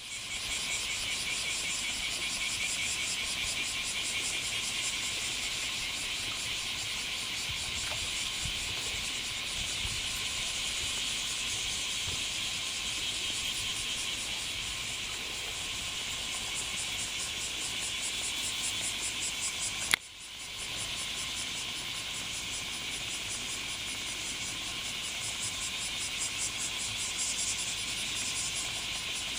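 Chorus of bear cicadas (kumazemi) calling steadily, a dense high-pitched pulsing buzz. About twenty seconds in, a sharp click and a brief dip interrupt it.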